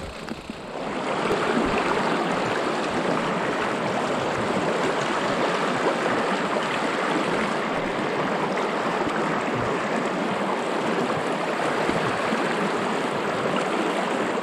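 Fast-flowing moorland river rushing and splashing over boulders in a steady, unbroken rush, fading up about a second in. The river is running high and fast with late-autumn water.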